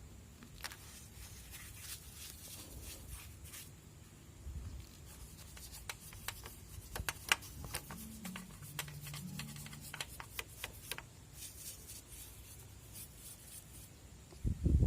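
A brush rubbing and scrubbing a cleaning mix of detergent, citric acid and diesel over a motorcycle engine casing, in short irregular scratchy strokes. A louder knock comes near the end.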